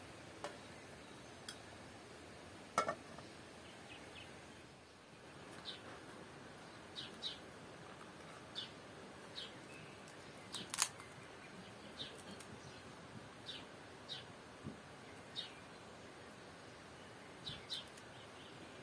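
Small bird chirping at irregular intervals, short high chirps each dropping slightly in pitch, over a faint outdoor hiss. Two sharp clicks come through, one about three seconds in and a louder one about eleven seconds in.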